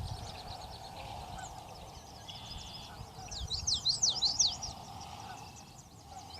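Birds calling: many quick, high chirps, thickest in a busy flurry about halfway through, over a steady lower hum of sound.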